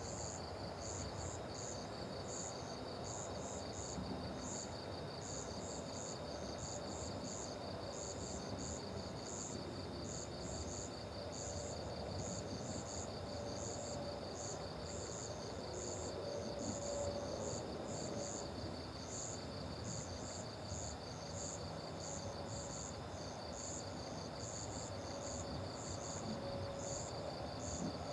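Crickets and other night insects chirping. One keeps up a fast, even trill, while another gives short, higher chirps in uneven groups of two or three, over a low, steady background noise.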